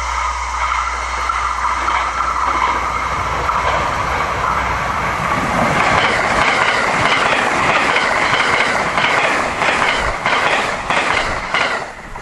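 A 681/683-series limited express electric train passing at speed, its sound building as it approaches, with a run of wheel clacks over the rail joints in the second half that stops abruptly near the end.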